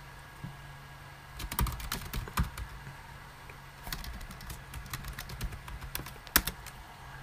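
Computer keyboard typing in two short bursts of keystrokes, one about a second and a half in and another from about four seconds in, with one sharper key press near the end.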